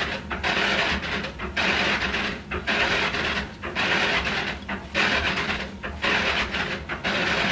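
A hand saw cutting at a wooden door frame where it meets the masonry wall, cutting the frame loose for removal. It makes steady rasping back-and-forth strokes, about one a second, with brief pauses between them.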